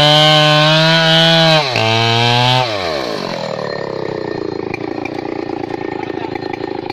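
Stihl 070 two-stroke chainsaw cutting into a tree trunk at high revs, its pitch stepping down once a little before two seconds in. About three seconds in the engine winds down and settles to a steady idle.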